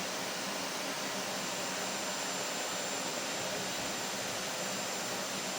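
Vacuum cleaner running steadily: an even rush of air with a faint motor hum and a thin high whine.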